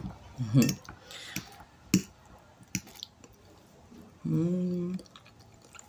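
Mouth sounds of a person eating: a few sharp clicks spread out, and about four seconds in a short hummed "mmm" on one steady pitch.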